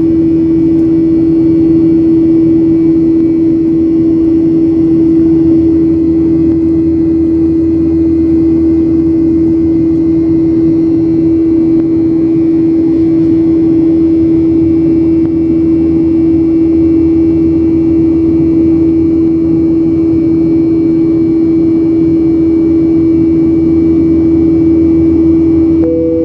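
A jet airliner's turbofan engine heard from inside the cabin, from a window seat beside it, in flight: a steady loud roar with a constant droning hum.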